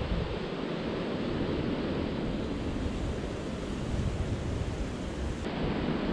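Surf breaking on the barrier reef, a steady noisy rush of waves, mixed with wind on the microphone. The sound turns abruptly duller about five and a half seconds in.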